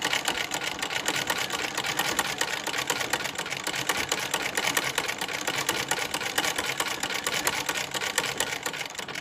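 An 1873 American Buttonhole and Overseaming Model 1 sewing machine stitching through fabric: a loud, fast, even mechanical clatter from the needle and its shuttle, which swings in an arc like a vibrating shuttle.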